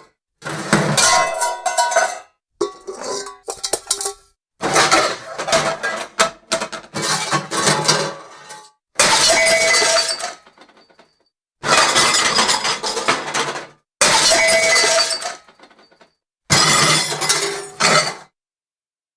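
Pots and pans clattering and crashing in about seven separate takes, each a second or two of jangling impacts with a short metallic ring, separated by sudden dead silence.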